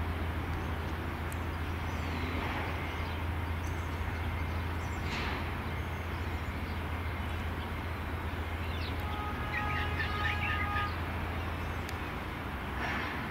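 Steady trackside background noise with a constant low hum, as a suburban electric train approaches from a distance. Birds chirp now and then, and a brief whistle-like tone with twittering comes about ten seconds in.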